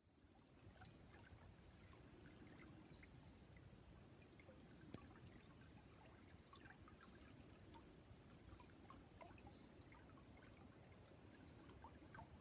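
Faint, steady rush of the Tanew river running over low rocky rapids and small cascades.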